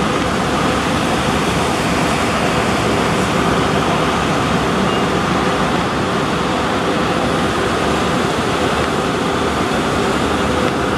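HXD1G electric locomotive hauling passenger coaches past at low speed: a steady wash of running noise, with a faint steady hum that grows in the second half as it passes below.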